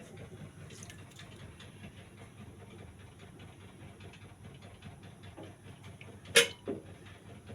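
Low steady background noise with faint scattered ticks, broken by one sharp loud knock about six seconds in and a smaller one just after.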